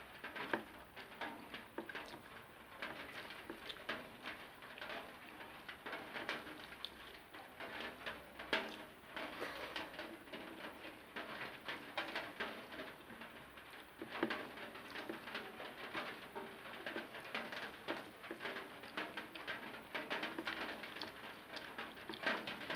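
Close-up eating sounds: chewing and wet mouth noises as rice with curry is eaten, a dense, irregular run of small clicks and smacks.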